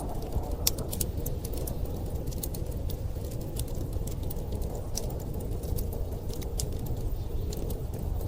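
Wood fire crackling in a fireplace, with irregular sharp pops and snaps, over a steady low rumble of blizzard wind.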